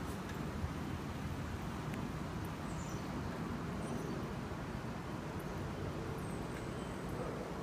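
Quiet outdoor background: a steady low rumble, with a few faint high chirps about two to three seconds in.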